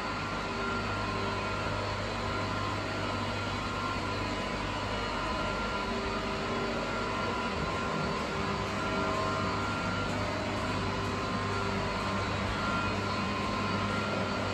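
Steady mechanical drone of running factory machinery: an even rushing noise with a low hum and a few faint steady whines over it.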